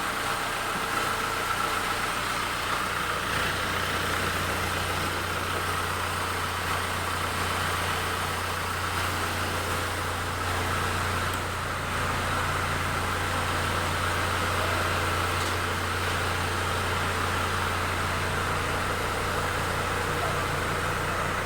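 Car engine idling steadily with the air-conditioning compressor, freshly replaced, engaged by its clutch coil and running.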